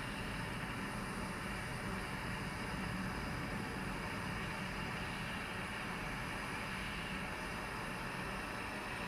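Handheld gas torch flame burning with a steady hiss, heating a copper battery-cable connector while the solder inside it melts.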